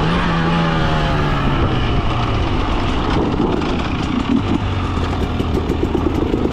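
Two-stroke dirt bike engine coming off the throttle, its revs falling over the first couple of seconds, then running roughly at low revs.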